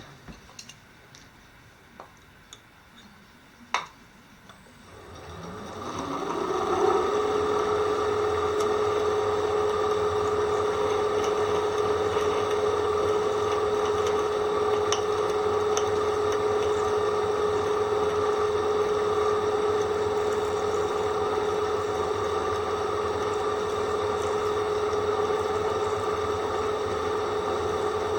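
A few faint clicks, then a power drill spinning up with a rising whine and settling into a steady, loud high whistle that holds without change: the whistle of a dull drill bit.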